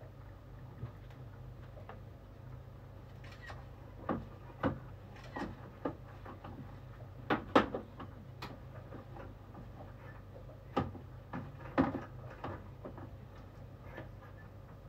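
Scattered clicks and knocks of things being handled in a kitchen, the loudest about halfway through and again later, over a steady low hum.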